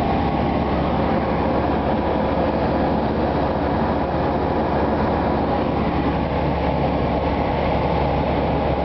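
Tecnam P2002 Sierra light aircraft's Rotax 912 engine and propeller running steadily in level flight, heard from inside the cabin.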